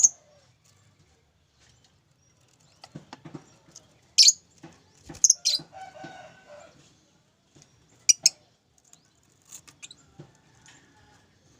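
Pet lovebird giving short, shrill chirps now and then, several in quick pairs.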